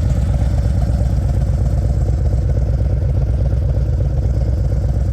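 Harley-Davidson Road Glide's Milwaukee-Eight 117 V-twin engine running steadily while the motorcycle is ridden, heard from the bike.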